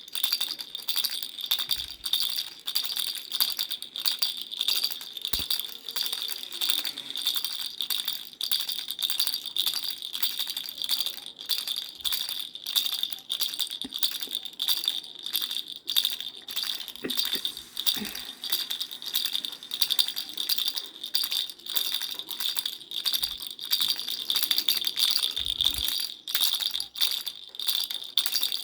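Parrot baby rattle shaken continuously, a dense, steady rattling of rapid clicks with a bright jingly edge.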